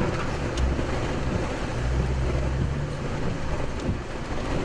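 Wind rushing over the microphone, with a vehicle engine running low underneath.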